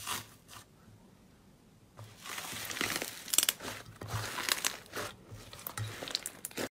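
Hands pressing, tearing and squeezing green slime with a dried, crusted surface, which crackles and tears as it breaks into flakes. A couple of short crackles at the start, then a lull, then dense crunchy crackling from about two seconds in until it cuts off suddenly.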